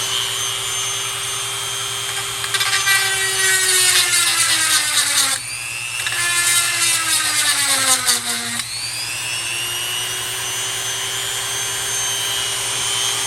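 Power chainsaw sharpener's motor running steadily, then grinding the chain's teeth twice for about three seconds each: the motor's pitch sags under load while the stone grinds the steel. After the second pass it spins back up to free speed.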